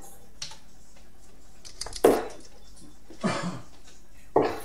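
Three darts pulled one at a time from a Winmau Blade 5 bristle dartboard, making three short clacks about a second apart.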